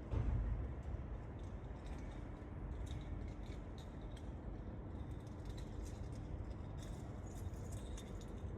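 Breeze rumbling on the microphone, stronger in a brief gust at the start, with leaves rustling and ticking lightly against each other throughout.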